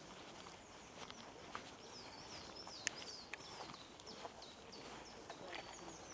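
Small birds chirping and twittering in quick, repeated high-pitched notes, with a few soft clicks and one sharp click about halfway through.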